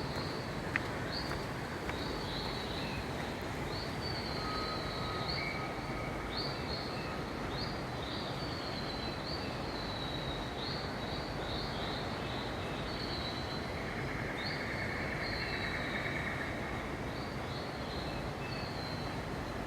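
Indoor rainforest ambience: short high chirping calls repeating about once a second over a steady background hiss.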